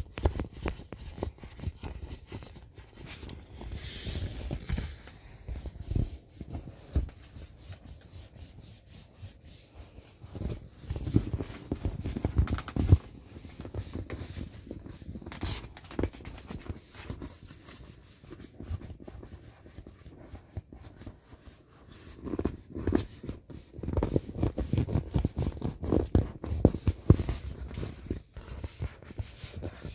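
A hand rubbing, pressing and patting the inflated vinyl skin of a PuffyPaws Gen 3 inflatable wolf. It makes irregular rubbing and scraping with soft low bumps, busier in the middle and over the last third.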